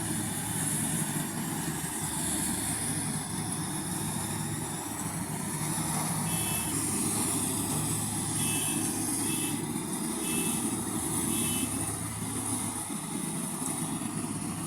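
Rice combine harvester running steadily under load, with an engine drone and a high hissing rush from its threshing works. Midway there is a run of short, evenly spaced high beeps, a little under one a second.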